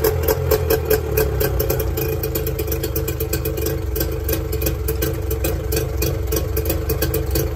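Mercury 25 hp outboard motor idling steadily, its firing a fast, even pulse.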